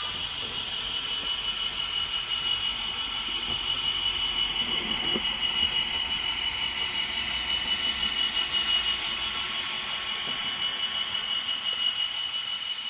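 OO gauge model train with DCC sound running past on the layout, with a steady high-pitched whine that swells and then fades away near the end.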